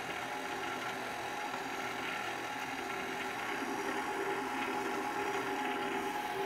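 KitchenAid Classic stand mixer running with its wire whisk, a steady motor hum, as flour is added gradually to whipped egg-and-sugar batter.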